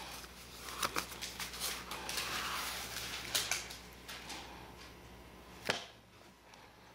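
Paper and card keepsakes (photo folders, old photographs, envelopes) being handled in a box: rustling in the middle, with a few sharp taps, the loudest near the end.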